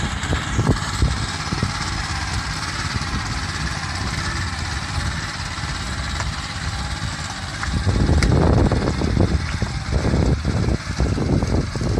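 Rice transplanter's small engine running steadily. About eight seconds in, the sound grows louder, with an uneven low rumble.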